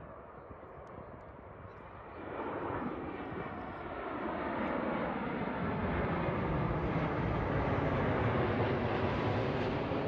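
Twin-engine jet airliner passing low overhead. Its engine noise swells in about two seconds in and keeps growing louder toward the end.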